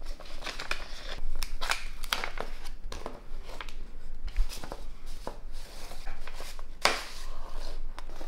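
Paper envelope being opened by hand: irregular rustling and crinkling of the paper as the flap is pulled open, with a sharper crackle about seven seconds in.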